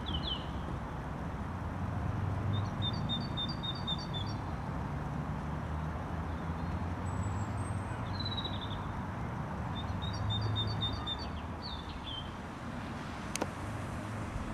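Small songbirds singing: twice a quick run of high repeated chirps, with a few single slurred notes between, over a low steady rumble. A single sharp click near the end.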